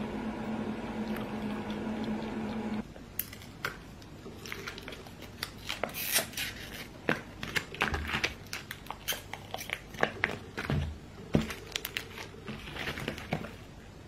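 A steady low hum for about the first three seconds, then the plastic wrappers of packaged sausages crinkling and tearing in many sharp, irregular crackles as they are pulled open by hand.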